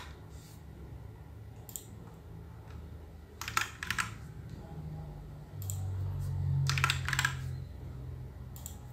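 Computer keyboard keystrokes in a few short, quick bursts as numbers are typed into table cells, over a low hum that swells in the middle.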